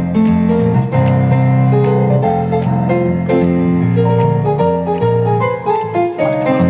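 Jazz band playing an instrumental passage: a keyboard line of quick stepping notes over a moving bass line, with no singing.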